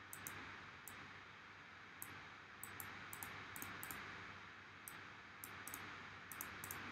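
Faint, scattered clicks of a computer mouse and keyboard over a low steady hiss.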